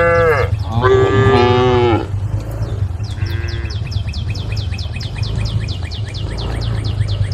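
Cows mooing: a call ending at the start, a long call about a second in that drops in pitch at its end, and a shorter one about three seconds in. From about three seconds on, a fast series of high chirps, about seven a second, runs over a steady low hum.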